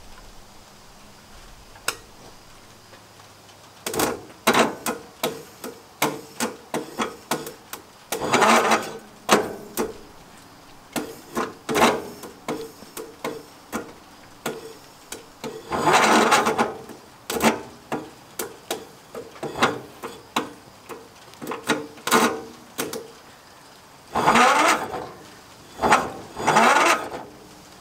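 Repeated sharp clicks and several bursts of about a second each as the engine's starter is tried again and again without the engine catching; the starter seems too weak to crank it.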